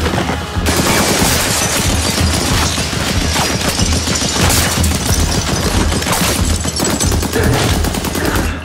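Heavy automatic gunfire: a dense, unbroken run of rapid shots, loud throughout.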